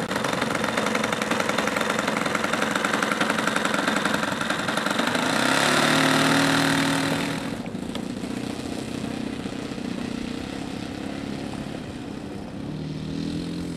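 Radio-controlled Gee Bee Model Z racer's engine running on the ground, brought up to a loud, high full-throttle run about six seconds in. It drops off suddenly and runs on more quietly as the plane begins its takeoff roll.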